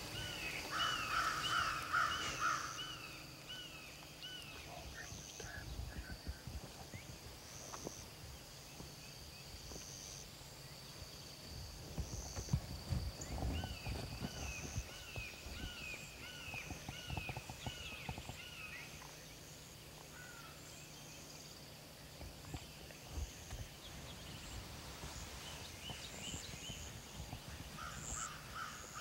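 Wild birds calling outdoors: one bird gives a quick run of short, repeated notes near the start and again about halfway through, among fainter bird and insect calls, with some low rustling in between.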